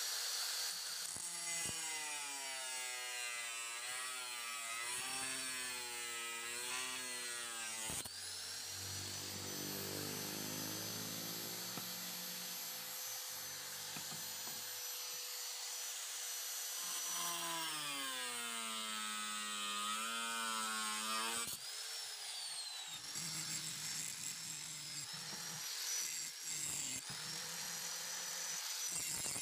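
Electric angle grinder grinding the steel of a forged knife blade. Its motor whine wavers and sags as the disc bites and recovers as it eases off, with a brief drop and pick-up about 22 seconds in.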